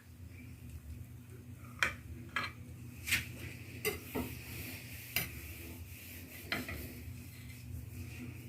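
A utensil clinking and scraping against the dish while a slice of cake is cut and lifted out, about seven short, separate clinks.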